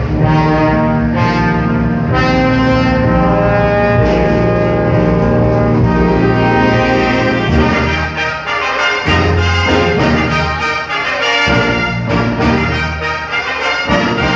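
Brass band playing, trombones and trumpets to the fore: long held chords at first, then shorter, accented notes over low bass hits from about eight seconds in.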